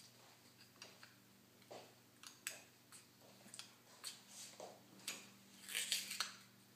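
Faint scattered clicks and crinkling as a small knife works at the plastic seal on the top of a small glass spice jar, with a denser run of crinkling about six seconds in.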